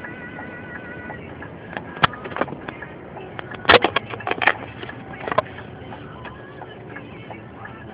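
Steady road and engine noise heard inside a moving vehicle's cab. An irregular run of sharp clicks and knocks comes between about two and five and a half seconds in, the loudest near four seconds.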